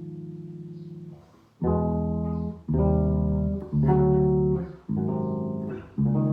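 Solo bass playing chords. A held chord dies away, then after a brief pause comes a series of plucked chords roughly a second apart.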